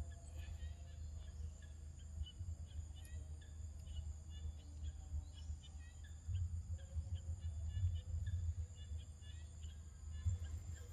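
Outdoor ambience: many short high chirps, repeated irregularly, over a steady high-pitched whine and a low rumble that grows louder about halfway through.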